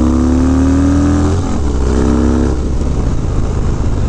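Harley-Davidson Dyna V-twin with a Bassani Road Rage 3 exhaust pulling under acceleration, its note rising steadily. The note breaks off about a second and a half in, comes back briefly, and then gives way to rushing wind and road noise as the throttle eases.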